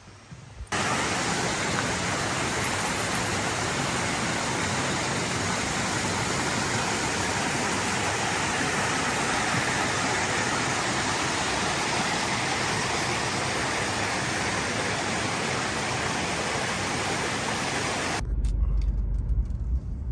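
Steady rushing water, a stream or small waterfall, with an even hiss. It starts abruptly under a second in and cuts off about 18 seconds in, giving way to a low rumble.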